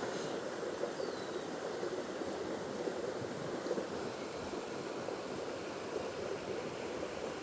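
Creek water running and babbling steadily.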